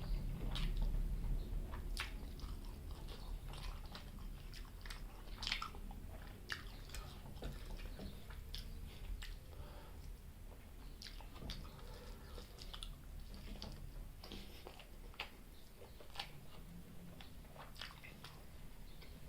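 Close-miked mouth sounds of a person chewing chicken gizzard and liver curry with rice, with irregular sharp, crunchy clicks of teeth and wet smacks throughout.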